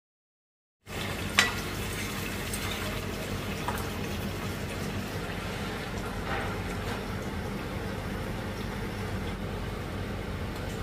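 Food cooking in a wok: a steady sizzling hiss over a low hum. A sharp clink of a metal utensil against the pan about a second and a half in, and a few softer clicks later.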